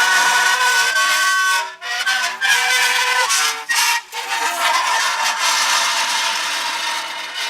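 Metal pressed against dry ice, singing and squealing in wavering pitched tones over a hiss as the sublimating gas vibrates the metal. The tones break off briefly about two and four seconds in as the metal is bent and shifted.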